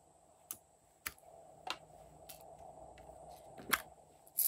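A series of quiet, sharp clicks and taps as hands work slime in a glass dish and pick up a plastic case of sequins, roughly one every half second, with the loudest near the end.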